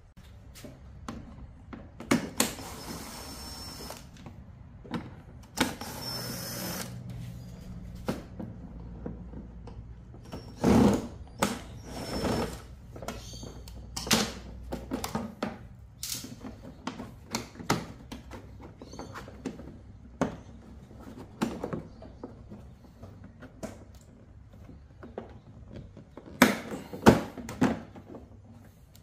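Cordless drill-driver spinning out the scooter's transmission cover bolts in two short runs of about a second and a half each, among clunks and clinks of tools, bolts and the plastic floor panel being handled on a metal workbench.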